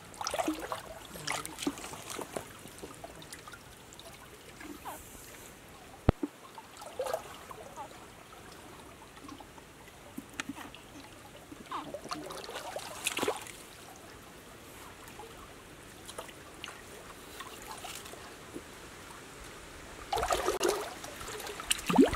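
Shallow stream water trickling, with scattered rustling and small knocks, and a sharp click about six seconds in. Louder splashing near the end comes from a person wading in shallow muddy water.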